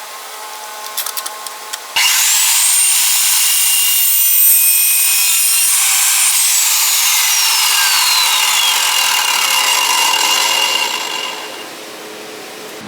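Evolution S355MCS 14-inch metal-cutting mitre chop saw starts about two seconds in with a rising whine, then cuts through steel stock with a loud, bright, hissing noise for about nine seconds. Partway through, a whine falls in pitch. The noise dies away near the end.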